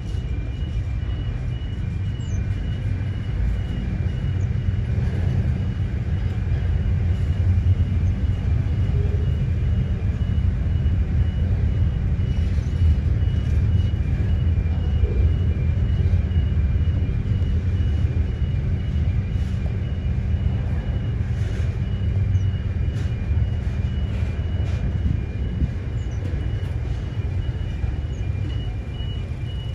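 Container freight train rolling past: a steady low rumble from the wagons' wheels on the rails, with a few scattered clicks and knocks.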